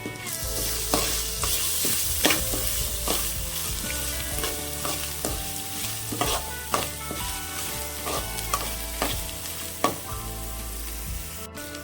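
Food sizzling in hot oil in a pan while it is stirred, with frequent sharp taps and scrapes of the spoon against the pan.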